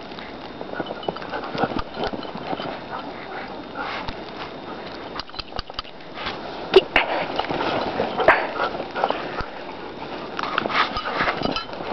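Siberian husky moving through snow: irregular crunching steps, with sniffing and breathing.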